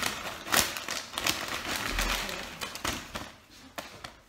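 Irregular rustling with a string of small clicks and taps close to the microphone, and a low thud about two seconds in.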